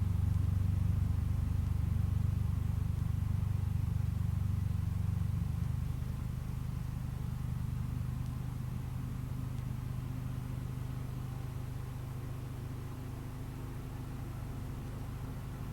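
A 1975 Case 224 garden tractor's engine running steadily under load with its snow thrower, a low hum. About six seconds in the note eases slightly lower and gets a little quieter.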